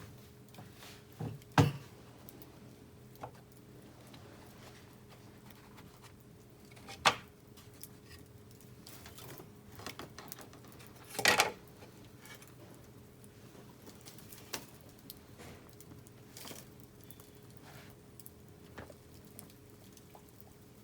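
Scattered sharp clicks and knocks, three of them much louder (about a second and a half in, about seven seconds in, and just past the middle), over a faint steady hum.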